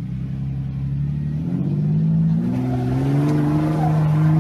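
Lifted Jeep Cherokee's engine revving under load as it climbs a steep rock ledge; the engine note rises about a second and a half in and then holds high.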